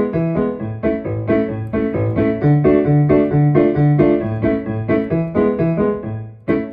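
Piano playing a quick, bouncy run of repeated chords over a moving bass line, music for jumping to, stopping on a final chord near the end.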